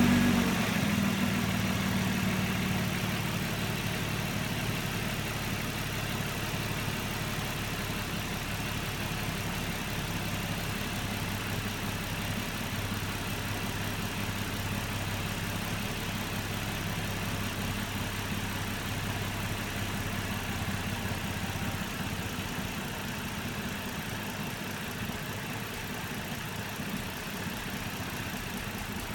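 Nissan Murano engine idling roughly. It is louder at first and settles to a lower, steady level over the first few seconds, and its low hum drops away about 22 seconds in.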